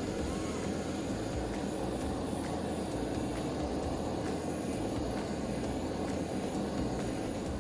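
Gas torch burning with a steady rushing noise as it heats the dented steel expansion chamber of a KTM 250 two-stroke, so the air pressure inside can push the dent out.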